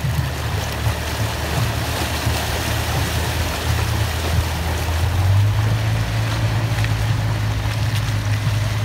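Dodge V10 pickup truck engine droning at low trail speed while the tyres splash and churn through muddy puddles; the engine note steps up about five seconds in.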